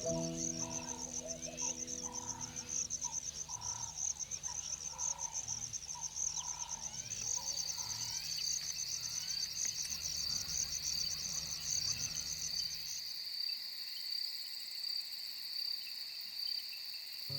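Evening chorus of crickets trilling steadily in fast even pulses; a high trill gives way about seven seconds in to a slightly lower one.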